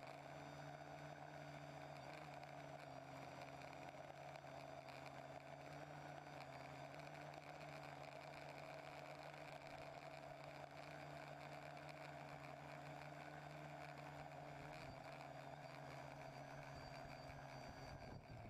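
Faint, steady whine of a TBS Discovery quadcopter's electric motors and propellers in flight, with several constant tones, picked up by the drone's onboard camera. The sound changes near the end as the drone comes down into the grass.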